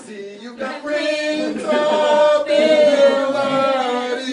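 A man and a woman singing the last line of a song together, ending on a long held note.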